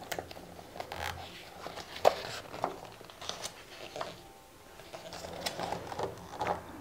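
A page of a hardcover picture book being turned and smoothed flat by hand: soft paper rustles and a few light taps and clicks.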